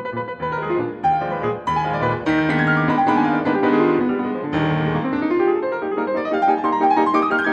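Piano music, a busy passage of notes, with a run climbing steadily in pitch over the last two seconds.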